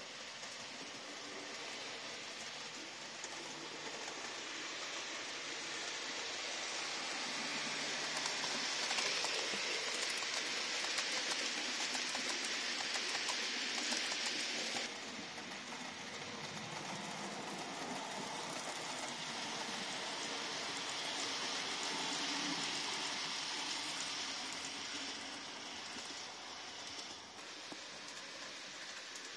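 Hornby TT:120 model train running on the layout's track: a steady hiss of wheels rolling on the rails, growing louder as the train comes past and dropping suddenly about halfway through.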